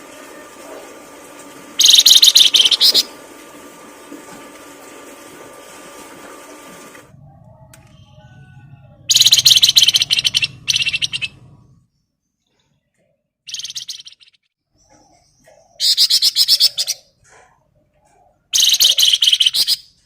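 Songbird giving loud bursts of fast, rapidly repeated high chattering notes, each burst about a second long, five times. A steady background hum cuts off about seven seconds in.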